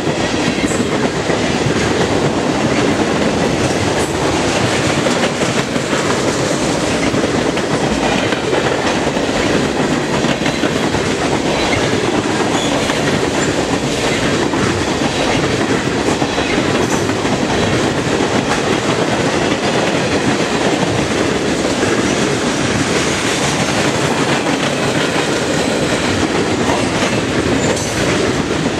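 Loaded freight cars, tank cars and boxcars, rolling past at speed: a loud, steady rush of steel wheels on rail with repeated clicks as the wheels cross rail joints.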